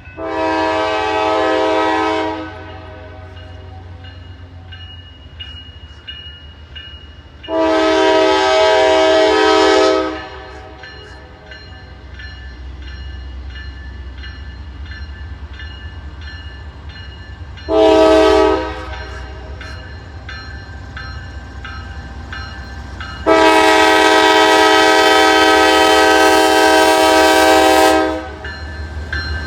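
Diesel locomotive's multi-chime air horn sounding the grade-crossing signal: two long blasts, a short one, then a final long blast, over a steady low engine rumble.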